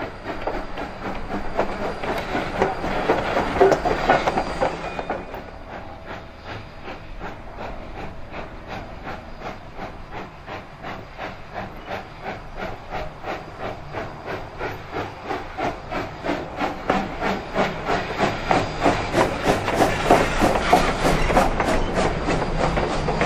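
Southern Railway 2-8-0 steam locomotive No. 401 under steam. A steam hiss in the first few seconds cuts off suddenly, then comes a steady, even chuff of exhaust beats that grows louder as the engine comes close and passes.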